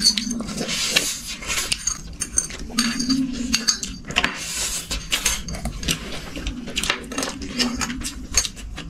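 Cutlery and dishes clinking and scraping during a meal, a quick, irregular run of small clicks.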